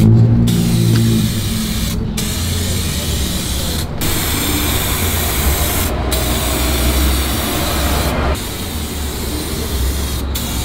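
Aerosol spray can of 1K clear coat hissing as it sprays, in long bursts with brief breaks about every two seconds.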